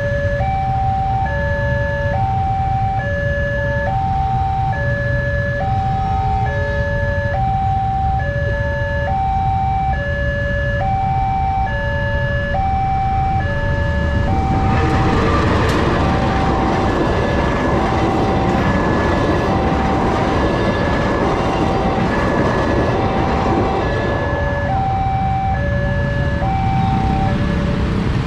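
Railway level-crossing warning alarm, the newly fitted common electronic type, sounding a two-tone high-low pattern that alternates about every 0.7 seconds over the low rumble of idling traffic. About halfway through, the rush of a passing train rises over it for about ten seconds, and the alarm stops shortly before the end.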